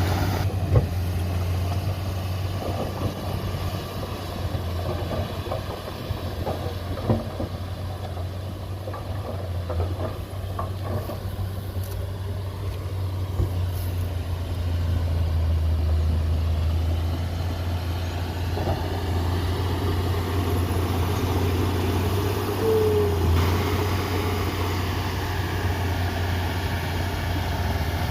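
Diesel engine of heavy earthmoving machinery (a bulldozer and dump trucks) running steadily, with a few short knocks and a brief squeak along the way.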